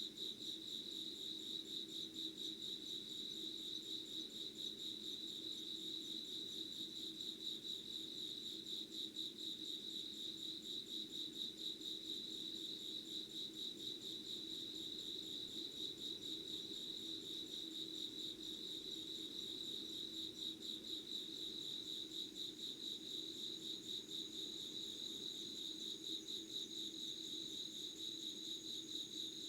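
Insects chirring in a continuous, rapidly pulsing high trill. A second, higher trill joins near the end, over a fainter low drone.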